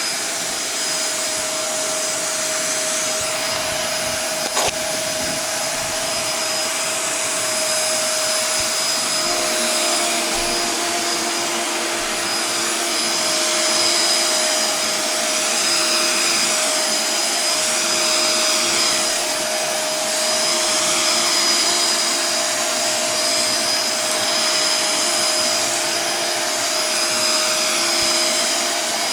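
Shark vacuum cleaner running steadily while vacuuming carpet, a loud rushing motor noise with a steady whine; a second, lower hum joins about a third of the way through, and there is one brief click about five seconds in.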